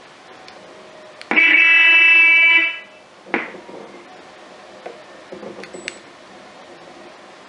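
Electric unicycle's built-in alarm sounding one loud, steady-pitched beep of about a second and a half, set off from its key-fob remote, followed by a short chirp and a few light clicks of the fob buttons.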